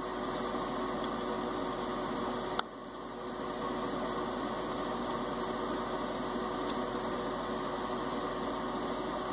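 Steady machine hum with a faint constant tone, and a single sharp click about two and a half seconds in.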